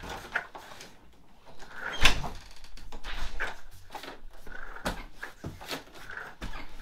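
Door latch and door swung open fast: one sharp, loud latch click about two seconds in, then a few lighter knocks and clicks as the door swings and comes back.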